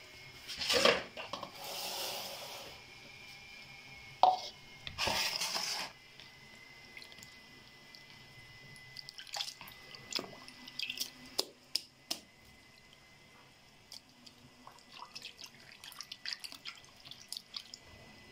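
A hand squeezing and kneading a lump of fresh butter in a plastic bowl of milky liquid: wet splashing, dripping and squelching in small irregular clicks. A few louder handling noises and a sharp knock come in the first six seconds.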